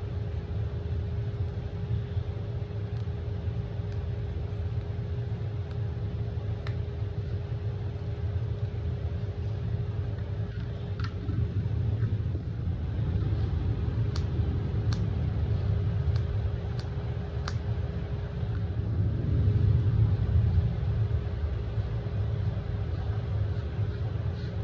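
Steady low rumble with a constant hum from running kitchen machinery. A few faint ticks come midway, and the rumble swells slightly near the end.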